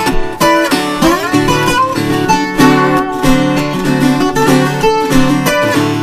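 Two violas caipira, Brazilian ten-string guitars, played together in a fast, dense duet of picked notes and chords, with a quick slide up about a second in.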